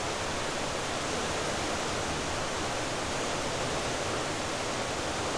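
Waterfall in a narrow rocky gorge, running high with extra water, making a steady, even, loud rush of falling water.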